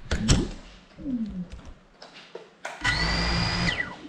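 A GEPRC Cinelog 35 cinewhoop crashing, with sharp knocks near the start, then its brushless motors and propellers whirring briefly with a high whine about three seconds in, for about a second, before spinning down with a falling pitch.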